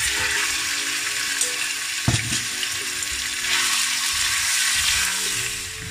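Raw marinated chicken breast strips sizzling in hot oil in a wok as they are stirred with wooden spatulas: a loud, steady frying hiss, with a single knock about two seconds in.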